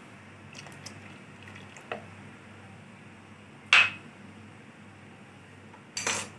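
Tamarind water poured from a cup into a pot of boiling chickpeas, then two sharp clinks of dishware, about four and six seconds in, over a faint steady background.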